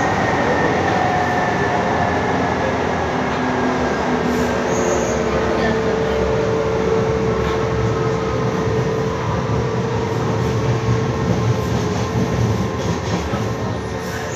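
Ansaldo Breda light rail car heard from inside while running: a steady rumble of wheels on rail with a faint whine from the drive. One high tone slides slowly down over the first few seconds, and the overall level eases slightly toward the end.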